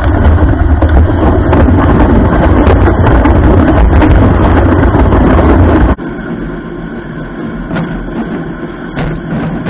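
Snowmobile engine running while driving across lake ice, loud with wind buffeting the microphone. About six seconds in the sound cuts abruptly to a much quieter, steady engine hum.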